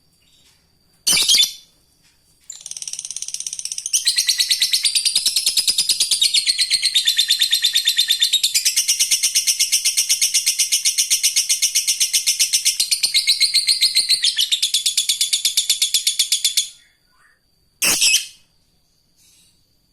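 Lovebird giving its long, rapid chattering trill ("ngekek"), about fourteen seconds of fast, evenly repeated high-pitched notes that build up and then stop abruptly. A single short call comes before it and another after it.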